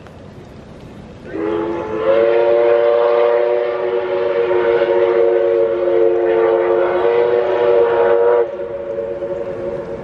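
Steam whistle of NSW locomotive 5917 sounding a long multi-note chord, starting about a second in, swelling a moment later and held for about seven seconds before cutting off. After it stops, the same chord carries on more faintly, echoing.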